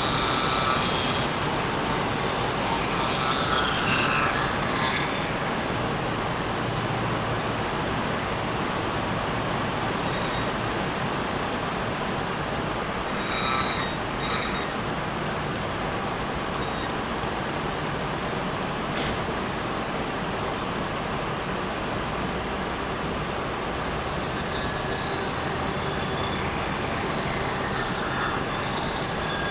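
Vertical milling machine running, its end mill cutting through a bronze bar with a steady rushing noise. High-pitched squealing from the cut comes in the first few seconds and again near the end, with a brief break and a few sharp scrapes about halfway through.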